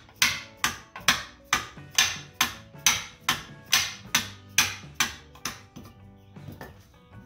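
Dead blow mallet striking a Bilstein 5100 strut in a steady run of blows, about two a second, each followed by a short metallic ring. The blows knock the old parts loose along the shock shaft. They give way to a few faint taps about six seconds in.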